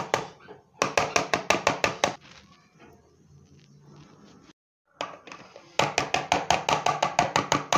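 Rapid scraping strokes of food being grated on a small hand grater over a bowl, about seven strokes a second. The strokes come in bursts: one right at the start, another a second in, and a long run from about two seconds before the end, with a quieter pause between.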